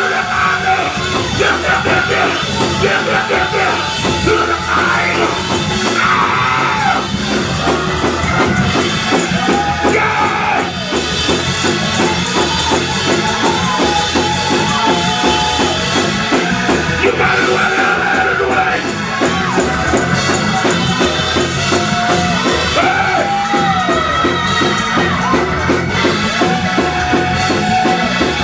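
Loud, continuous live gospel praise-break music: a drum kit keeps up a driving beat while voices sing and shout over the band.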